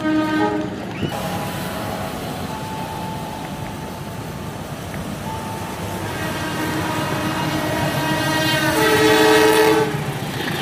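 Diesel locomotive passing with its passenger train, a steady rumble under the sounding of its multi-tone air horn: a short blast at the start, then a long one from about six seconds in that swells and breaks off near the end.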